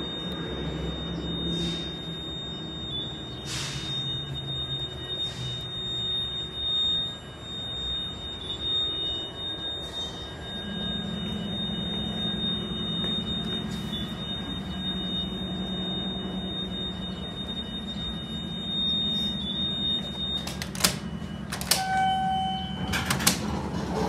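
KONE hydraulic elevator in travel, a steady low hum joined partway through over a faint high whine. Near the end the whine stops, a few sharp clicks and a short chime sound, and the car doors slide open as it arrives.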